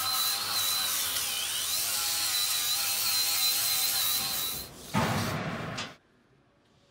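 A handheld power grinder runs against a steel beam, grinding off paint before welding. It makes a high, wavering whine over gritty hiss, and the pitch dips briefly about a second in. About five seconds in comes a louder, rougher burst, and then the sound stops.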